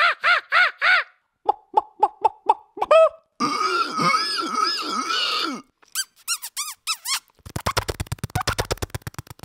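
Human mouth sound effects made one after another: quick repeated whistled chirps, then a dense squeaky warbling of several overlapping tones in the middle, then a fast rattle of clicks near the end.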